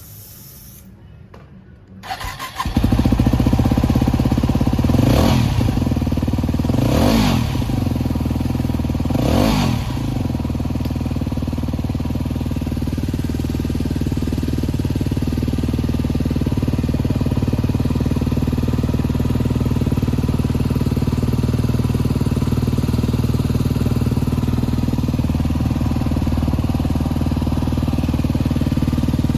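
Yamaha WR250X's single-cylinder four-stroke engine, breathing through an SP Tadao P-BOX exhaust with an FMF silencer, starts up about two seconds in. It is blipped three times, each rev rising and falling back within about a second, then settles into a steady idle.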